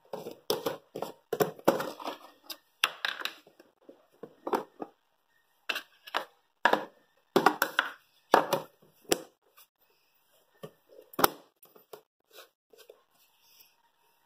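Plastic jar of dog treats being opened and handled: the screw lid twisted off and the treats rattled and rummaged inside, a run of irregular clattering clicks. A few sharper knocks follow later, the sharpest about eleven seconds in.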